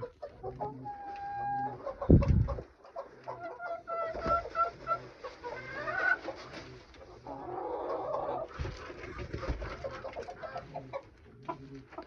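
Chickens clucking in short repeated calls, with one loud thump about two seconds in and some rustling a little later.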